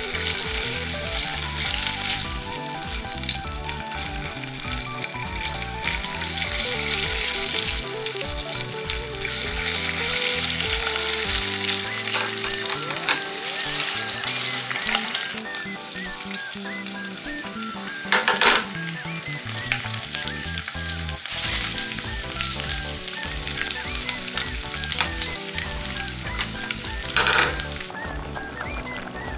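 Ingredients sizzling in olive oil in a frying pan while being stirred, with a few louder spurts of sizzling. Background music plays under it.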